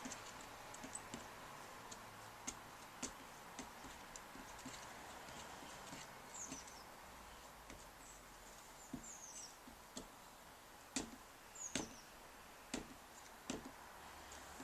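Screwdriver stirring thinners into old paint in a metal tin: faint, irregular clicks and taps of metal against the tin, a few sharper ones near the end.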